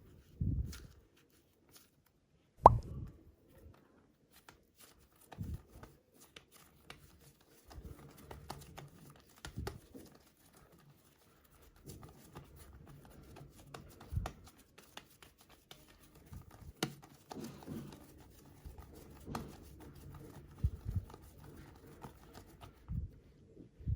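Hands working soft super clay: irregular squishes, presses and soft plops as the clay is kneaded and pressed, with one sharper smack about three seconds in.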